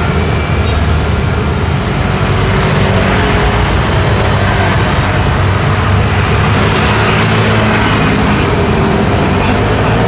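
Road traffic passing close by, mostly small motor scooters riding past and pulling away, their engines running in a steady, loud mix.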